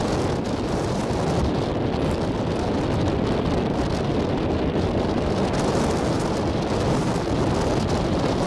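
Strong wind buffeting the microphone, a steady low rushing noise.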